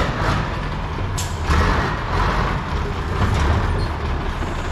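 Scania tractor unit's diesel engine running as the truck pulls forward. A short hiss of air comes about a second in.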